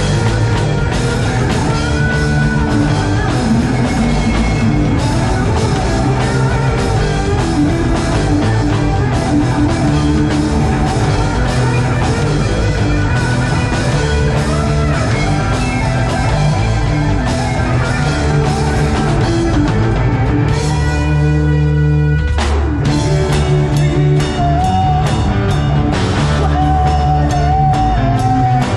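A heavy rock band playing live: drums, distorted electric guitars and bass at full volume. Shortly past two-thirds of the way through, the drums stop for a second or so under a held chord, then the band comes back in.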